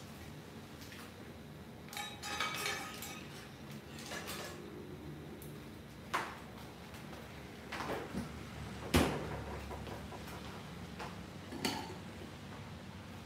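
Kitchenware clinking and knocking: a scattered series of clinks and knocks from dishes and utensils, some with a brief ringing tone, a cluster about two to three seconds in and the loudest knock about nine seconds in.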